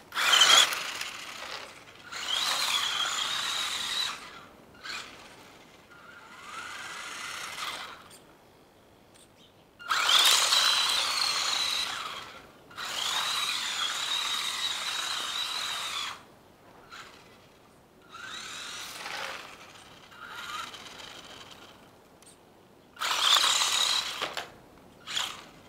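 Electric RC truck's motor whining in about five bursts of one to three seconds as it is driven hard, the whine climbing as each burst starts, with quieter running in between.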